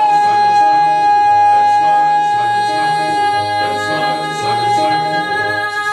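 A woman singing one long, steady high note at the close of a song, over instrumental accompaniment that keeps a regular rhythm of bass notes and chords beneath it.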